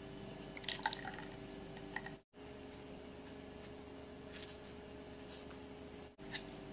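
Faint wet squishing and dripping as ground coconut pulp is poured into a mesh strainer and squeezed by hand, pressing out coconut milk. A steady faint hum runs underneath, and the sound drops out briefly twice.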